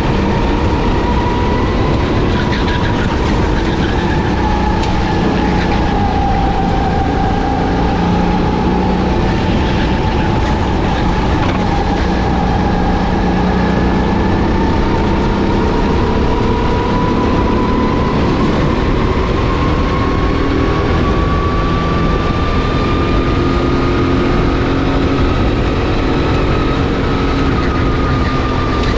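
Racing kart engine running under load, a continuous drone whose pitch drifts with the throttle, dipping slightly and then climbing slowly over the last few seconds.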